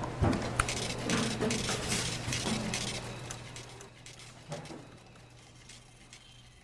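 A jumble of clicks, clinks and noisy clatter over a steady low hum, fading away over the last few seconds.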